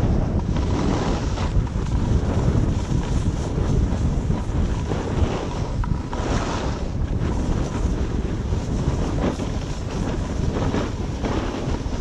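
Wind buffeting the microphone of a camera carried downhill at speed, with the hiss of snow scraping under the rider swelling on turns, about six seconds in and again near the end.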